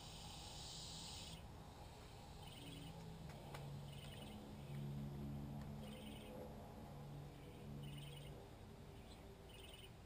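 Faint outdoor ambience: a short, high chirp repeats about every second and a half, over a low hum that comes in after a couple of seconds and fades out near the end. A high hiss cuts off about a second in.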